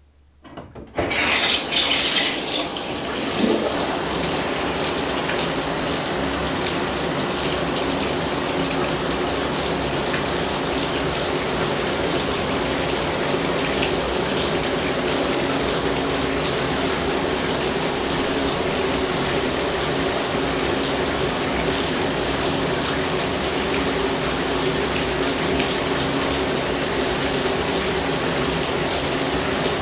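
Shower water comes on about a second in with a brief, brighter burst of spray, then runs steadily.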